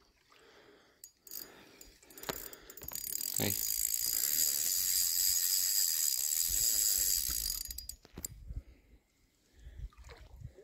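Spinning reel's drag buzzing as a hooked carp pulls line off the spool. It starts about three seconds in, runs steadily for about five seconds, then stops.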